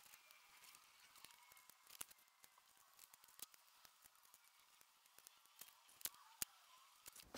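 Near silence with scattered faint clicks and taps of small wooden segments being set down and pushed into a row on a wooden workbench, two sharper clicks about six seconds in.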